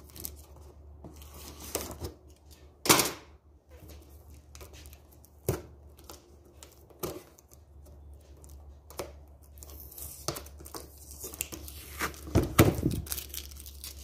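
A cardboard box's packing tape being cut with scissors and its flaps torn open by hand: scattered rips, snips and crinkles. The loudest comes about three seconds in, and a burst of them near the end.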